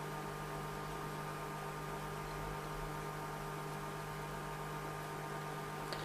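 Steady electrical mains hum with a background hiss, several constant tones held at an even level, with one faint short tick near the end.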